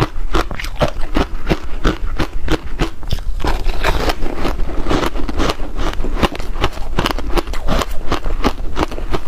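Ice coated in passion fruit pulp being chewed: ice breaking between the teeth in rapid, irregular crunches, several a second.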